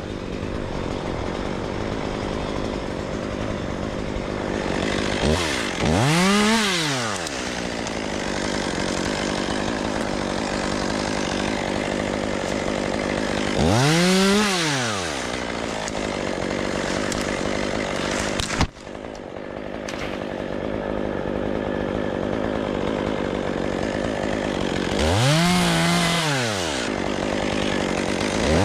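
A two-stroke chainsaw running at idle, revved up and back down about four times, each rev lasting a second or two.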